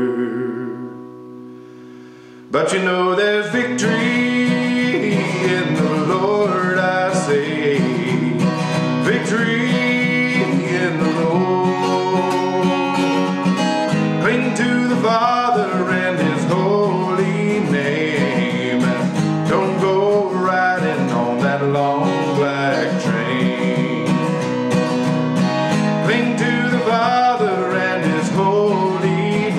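Steel-string acoustic guitar strummed with a man singing a country song over it. A chord rings out and fades at first, then the strumming comes back in sharply about two and a half seconds in and carries on steadily.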